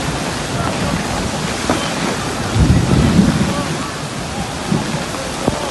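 Heavy rain pouring steadily, with a short, louder low rumble about halfway through.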